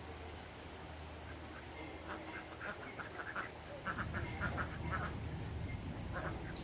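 Short animal calls in a quick series, running from about two seconds in to five seconds, with a few more near the end, over a steady low rumble.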